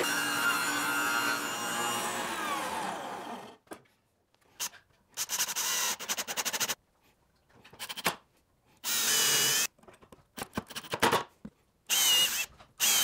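Table saw running and then spinning down, its pitch falling until it stops at about three and a half seconds. Then a cordless drill bores into the cedar fence-picket wood in a series of short bursts and a few longer runs.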